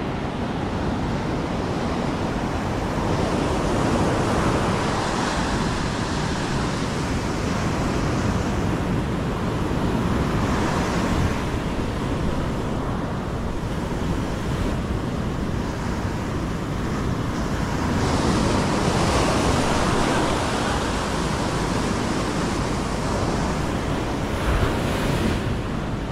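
Ocean surf breaking and washing up a steep beach, swelling louder and fading as each wave comes in, with wind on the microphone.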